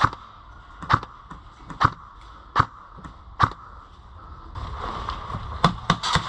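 Airsoft gun firing single shots, about one a second for five shots, then a quick pair of shots near the end.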